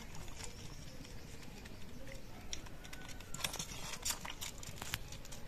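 Faint clicking and smacking of a young animal suckling milk from a plastic feeding bottle, in irregular clusters of small clicks.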